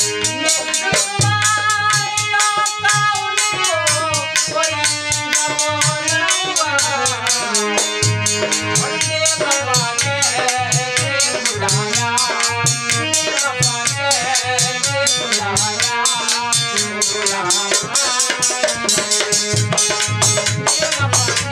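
Live ghazal music: a harmonium melody over a steady dholak beat, with a fast high jingling percussion and a man's voice singing along.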